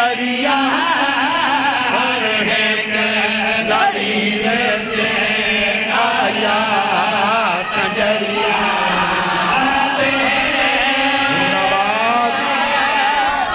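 Several men singing a devotional chant together into microphones, in long held notes with wavering pitch.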